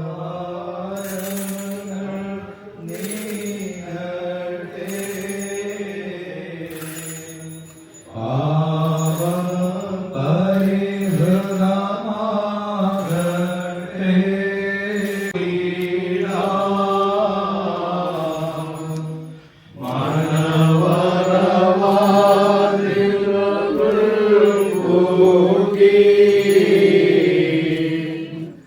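Orthodox liturgical chanting: long sung phrases on sustained notes, in three phrases with short breaks about eight and nineteen seconds in.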